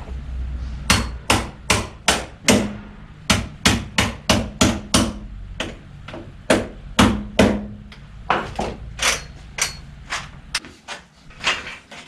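Hammer striking metal held in a bench vise: about two dozen sharp blows in quick irregular runs, some leaving a short metallic ring.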